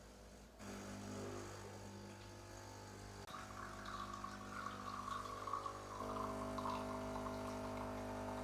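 Espresso machine pump humming steadily as a shot is pulled, with coffee trickling into the cup. The pump hum starts about half a second in and its tone shifts twice along the way.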